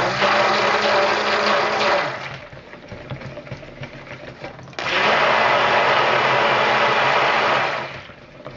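Electric stick blender running in two bursts, about two seconds and then about three, beating cold-process soap batter to bring it to trace.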